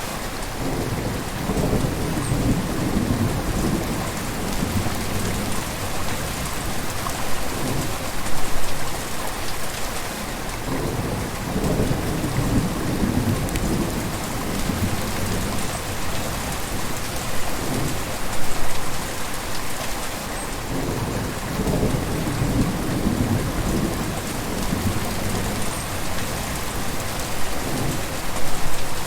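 River water flowing: a continuous rush of water, with deeper rumbling swells that rise and ease every few seconds.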